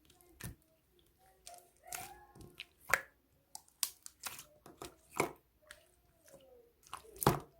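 Hands squeezing and stretching slime, giving sticky pops and clicks at irregular intervals, the loudest about three seconds in and near the end.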